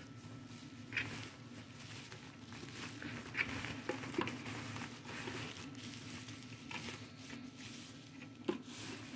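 Bubble wrap and plastic packaging crinkling and rustling as hands pull a wall clock out and push the wrap aside, with sharper crackles about a second in, around three to four seconds, and near the end.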